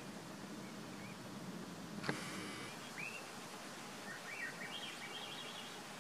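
Faint bird calls over steady outdoor background noise: a sharp click about two seconds in, then a short call, an upward chirp, and a brief run of quick high notes near the end.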